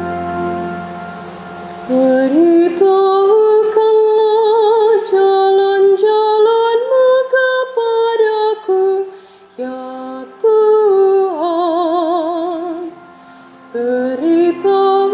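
A solo female voice sings a responsorial psalm (Mazmur Tanggapan) in Indonesian, in sustained phrases with vibrato and short breaths between them. It follows a held organ chord that dies away in the first two seconds.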